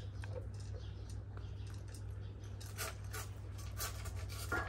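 Young Kangal dogs eating from their bowls: scattered short clicks, crunches and scrapes of chewing and licking over a steady low hum.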